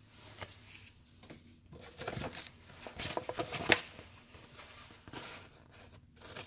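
Paper being handled and cut with scissors: scattered faint rustles and snips, with one sharper click about three and a half seconds in.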